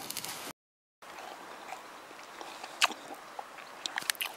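Slices of square sausage sizzling in a mess-tin frying pan on a gas-canister stove, a steady hiss with faint crackles, cut by a brief gap of silence about half a second in. A sharp click near three seconds and a few more clicks near the end.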